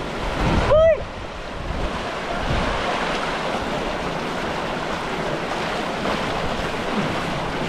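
River water rushing steadily over a small cascade into a rocky pool. A short vocal exclamation sounds about a second in.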